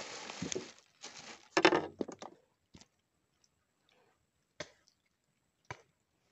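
A small lais catfish pulled from the river on a bamboo pole, with a brief splashing rush at first, then flapping and being handled, loudest about a second and a half in. A few sharp clicks follow as the hook is worked out of the fish.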